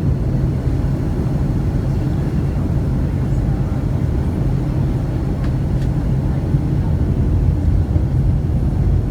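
Steady low rumble inside the cabin of a Boeing 757-200 airliner: engine and airflow noise, even throughout.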